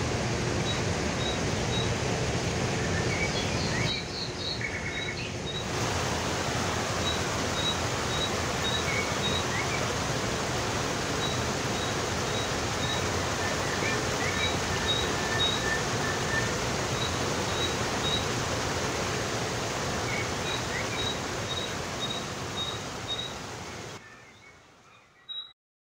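Fountain water splashing steadily from a row of wall spouts into a shallow basin, a continuous rushing hiss. Short high bird chirps repeat over it, and the sound fades out near the end.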